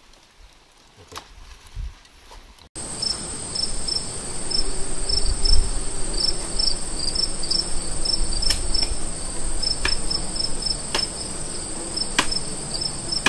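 A chorus of insects starting about three seconds in: a steady high-pitched buzz with rapid chirping over it. From about eight seconds in, four sharp chopping knocks sound roughly a second apart.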